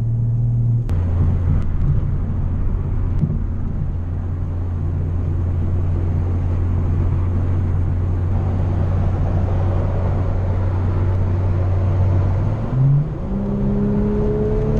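BMW M340i's turbocharged inline-six running at a steady low engine speed, with a hiss of tyres on wet road. About 12.5 s in the revs climb quickly as the car accelerates, then hold at a higher pitch.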